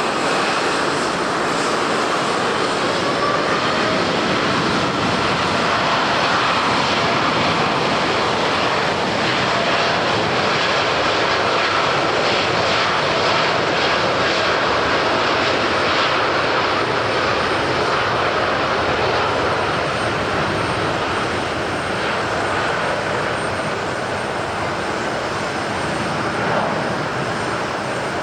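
Airliner engines running: a steady rush of noise with a faint whine that wavers in pitch, easing off a little in the last third.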